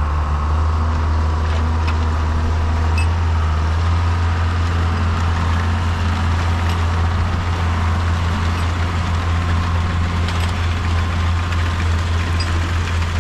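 Large engine running steadily with a deep, even hum, its level holding constant after a slight rise about four seconds in.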